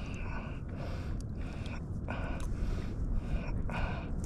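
A person breathing hard in short, quick, rhythmic breaths, about six in a row, over a steady low rumble of wind and water.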